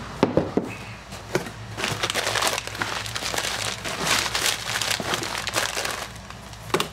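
A couple of knocks as a metal outboard lower unit is set down on a workbench, then crumpled newspaper packing crinkling and rustling in bursts as it is pulled out of a cardboard shipping box.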